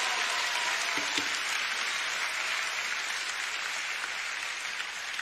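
A large church congregation applauding, an even wash of many hands clapping that slowly dies away.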